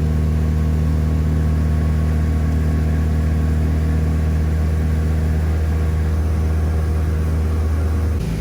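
Motorboat engine running steadily under way with a low, even hum, easing off a little just before the end.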